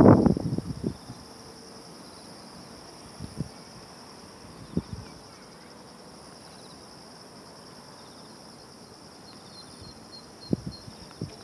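Wind buffeting the microphone in gusts, loudest in the first second and returning near the end, over a steady high-pitched chorus of insects.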